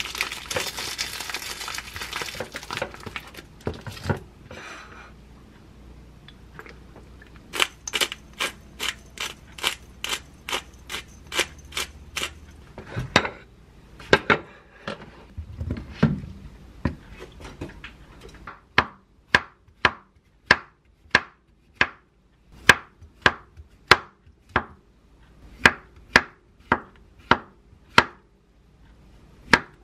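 Plastic vacuum packaging crinkling for the first few seconds as a piece of beef is unwrapped, then a run of quick knocks. In the second half a chef's knife slices button mushrooms, each stroke a sharp knock on a wooden cutting board, about two a second.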